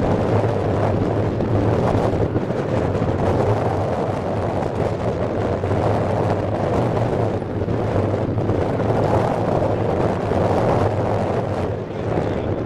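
Wind buffeting the camera's microphone, a steady, heavy rumble that covers everything else.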